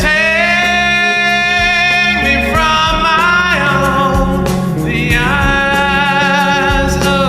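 Male hard-rock vocalist singing three long, high held notes with vibrato over a rock band backing of guitar, bass and drums.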